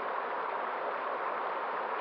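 Steady, even rush of a flowing stream, with no breaks or swells.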